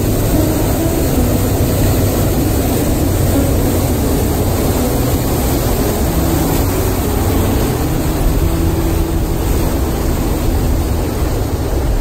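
A waterfall's water pouring over rock ledges into a plunge pool, a loud, steady rushing noise.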